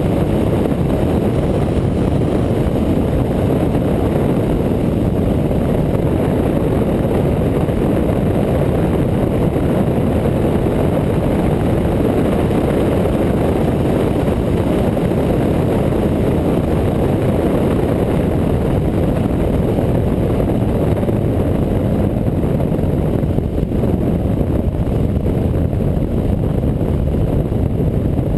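Motorcycle riding at a steady cruising speed, heard from on the bike: its engine running under a rush of wind noise, steady throughout.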